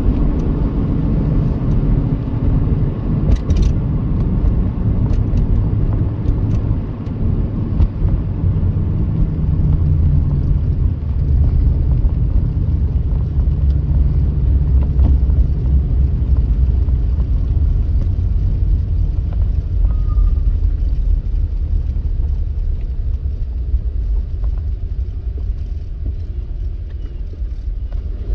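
Steady low rumble of a car's tyres and engine heard from inside the cabin while driving, a little quieter near the end.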